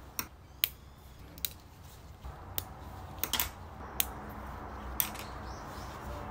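Small hard plastic clicks and taps of 3D-printed figurines being handled and set down, about eight separate clicks spread unevenly over a faint steady low background.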